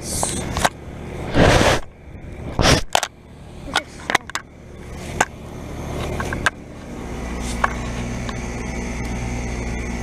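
Outdoor heat pump and air-conditioner condenser units running with a steady low hum, which grows steadier and louder about two-thirds of the way in. Over it come a couple of loud rushing bursts and scattered knocks and clicks from the camera being handled and moved.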